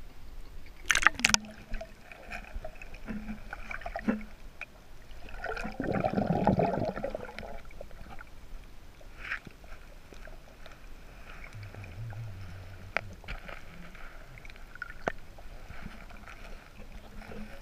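Water sloshing and gurgling heard muffled through a GoPro Hero3+ in its waterproof housing as it moves at and below the surface, with scattered sharp clicks and knocks. A louder rush of water comes about six seconds in.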